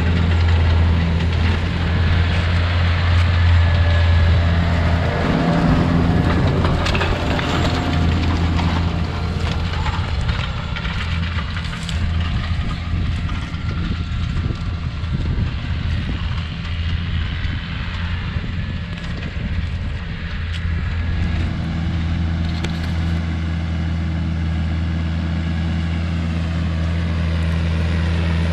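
Challenger MT635B tractor's Sisu 7.4-litre six-cylinder diesel running steadily as it pulls a nitrogen applicator, with a deep, even engine hum that dips slightly in level through the middle.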